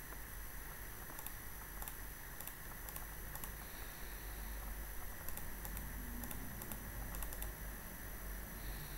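Scattered light clicks of a computer mouse, a few in quick succession a little after seven seconds in, over a steady low hum and hiss.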